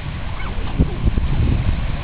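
Wind rumbling on the microphone over the steady hiss of surf.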